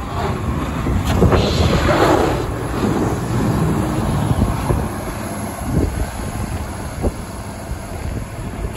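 Volvo G930B motor grader plowing snow as it passes close by: its diesel engine running under the steady hiss and scrape of the blade pushing snow along the road, loudest about one to three seconds in, then fading as it pulls away.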